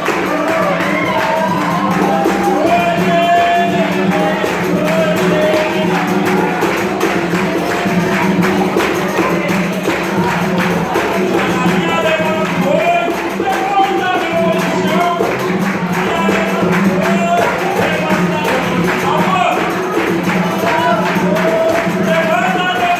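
Capoeira roda music: a voice singing a melody over the fast, steady jingle of a pandeiro and other percussion.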